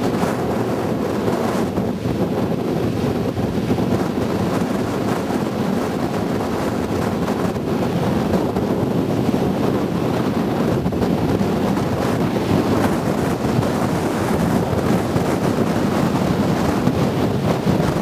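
Steady rushing of a multi-tiered waterfall pouring into a river pool, mixed with wind noise on the microphone.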